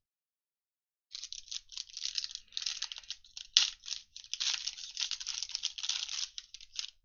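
Plastic wrapper of a pack of football trading cards crinkling and tearing as it is opened by hand, starting about a second in, with one sharp crack a little past the middle.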